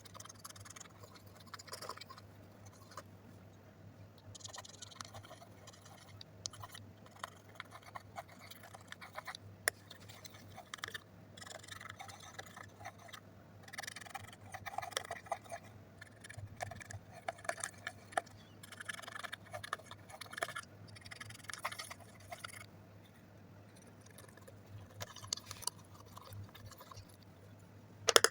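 Slime being worked by hand, giving irregular clusters of soft sticky clicks and crackles, with a faint steady hum underneath.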